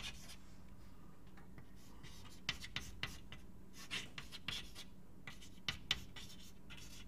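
Writing on a board: short scratchy strokes in scattered clusters, over a faint steady hum.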